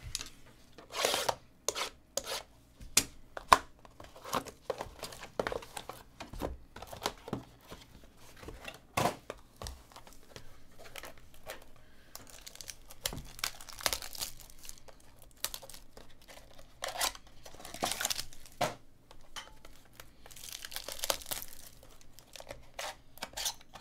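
Trading-card packaging being opened by hand: cardboard mini-box flaps clicking and scraping, and plastic and foil pack wrappers crinkling and tearing, in longer rustling bursts about halfway through and twice near the end.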